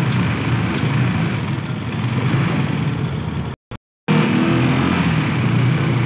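Motorcycle engine running noisily while riding in traffic, with a steady low hum and road and wind noise. The sound cuts out completely for about half a second a little past halfway.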